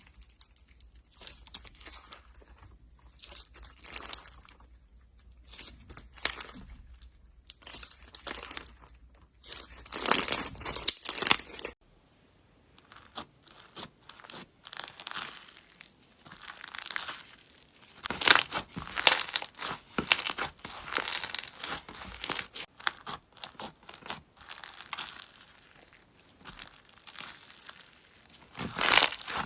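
Slime being squeezed, pressed and stretched by hand, giving irregular crinkling crackles and pops. There is a short pause about twelve seconds in, and the crackles then start again.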